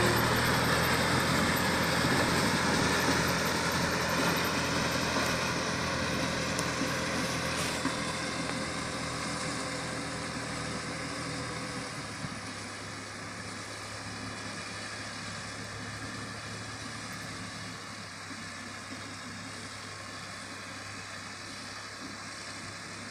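Small tractor's engine running steadily as it pulls a mini round baler through the hay, growing fainter as the rig moves away.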